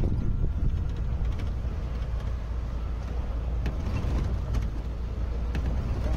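Safari jeep driving along a rough dirt track: a steady low engine and road rumble, with a few faint clicks.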